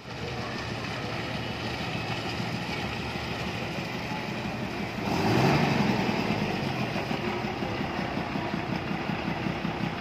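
Diesel engine of a red MSRTC state-transport bus idling with a steady, even throb, swelling louder for a second or so about five seconds in.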